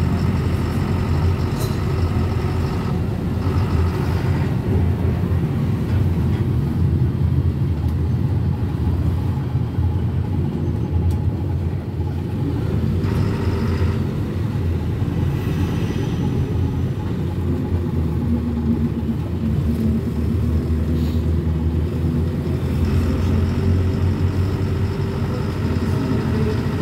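GAZelle route-taxi minibus driving, its engine and road noise a steady low rumble heard from inside the passenger cabin.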